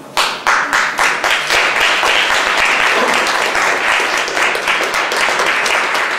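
Audience applauding: dense, steady clapping that picks up again after a brief dip at the very start.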